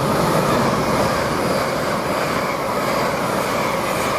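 LNER Class 801 Azuma electric train passing through the station at speed: a steady rush of wheels on rail and air.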